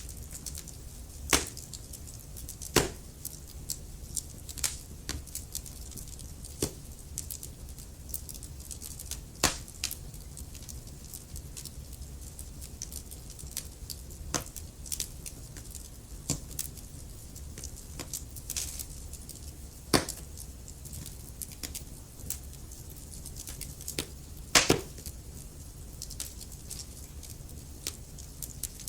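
Wood fire crackling in a fireplace: irregular sharp pops and snaps, a few much louder than the rest, over a steady low rumble.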